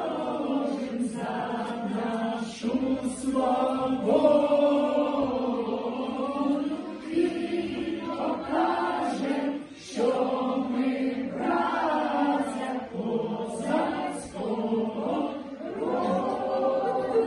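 A group of people singing a Ukrainian hymn together in unison, unaccompanied, in long phrases with brief pauses between them.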